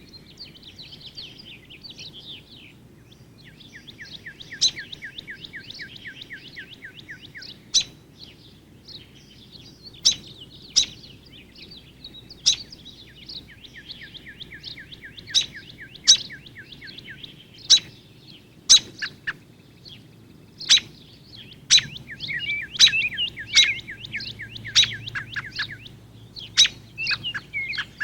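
Backyard birds calling and singing: a fast trill of quick repeated notes, heard three times, with loud sharp chip notes every second or two and higher twittering throughout.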